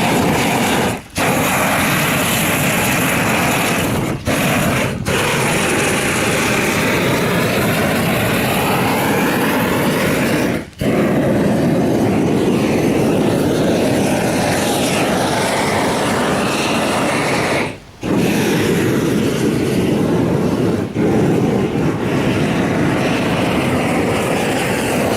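Steady loud roar, like an engine or burner, broken off abruptly for a moment several times.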